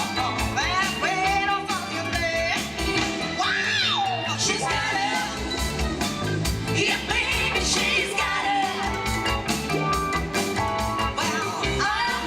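Live pop-rock band playing a song, with a singing voice over a steady drum beat, bass and keyboards.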